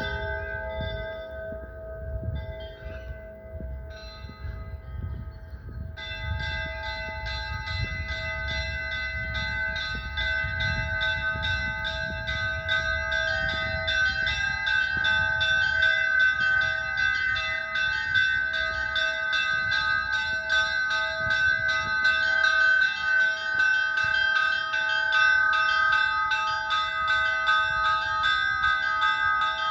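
Russian Orthodox church bells ringing: the bells' tones hang on and overlap. About six seconds in, a fast, continuous run of quick strikes on the smaller bells starts over them and carries on, growing a little louder.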